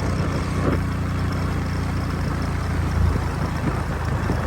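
A vehicle engine running steadily with an even drone.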